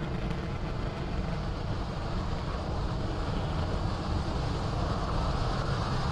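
Falcon 9 first stage's nine Merlin 1D engines during ascent just after liftoff: a steady low rumble with a hiss above it, growing slightly fuller in the second half.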